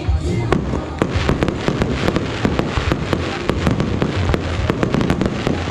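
Fireworks bursting overhead: a rapid, irregular run of sharp bangs and crackles, several a second.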